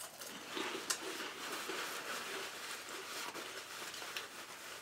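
Faint crunching of potato chips being chewed, with a small click about a second in.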